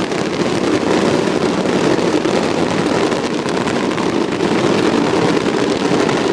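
Fireworks barrage heard as one continuous, loud rumble full of fine crackling, without separate single bangs.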